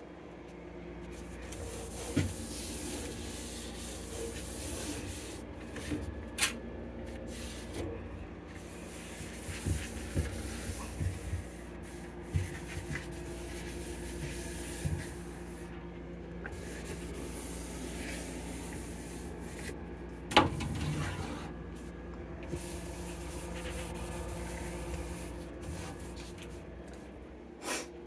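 Wet cloth wiping the plastic and glass inside of a refrigerator, a hissing rub in long strokes, with scattered knocks and clicks from handling shelves and drawers; the sharpest knock comes about twenty seconds in. A steady low hum runs underneath.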